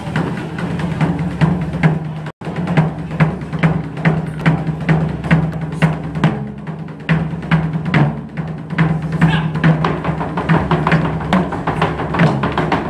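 Taiko ensemble drumming: rapid, dense strikes of sticks on barrel-shaped taiko drums, with a steady low tone beneath the beats. The sound cuts out for an instant about two seconds in.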